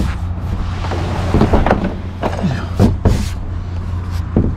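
Plastic sit-on-top kayak knocking and scraping on a truck's padded roof-rack bars as it is shifted off the rack, a few irregular knocks and short scrapes over a steady low hum.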